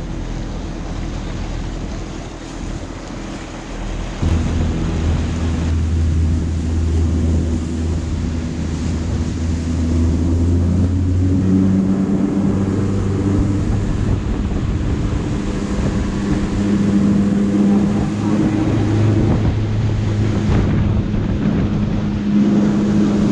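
Motorboat engine running under way with water rushing past the hull and wind buffeting the microphone. The engine gets louder about four seconds in and its pitch rises about halfway through as the boat picks up speed.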